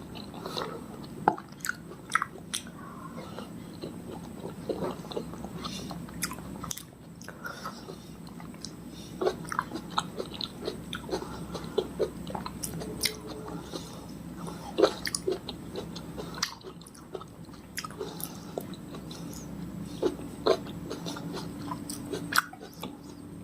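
Close-miked chewing and biting of fresh fruit, with irregular sharp mouth clicks all the way through.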